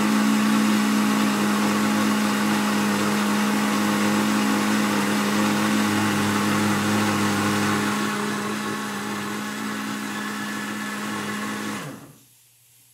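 Countertop blender running steadily at full speed, blending a liquid mix of milk and crushed paçoca, then switched off and winding down to a stop near the end.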